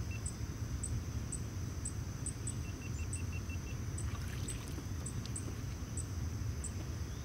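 Steady low rumble of moving water, with an insect chirping about twice a second over a steady high insect hum. A few faint splashes about four seconds in as hands work in the shallow water.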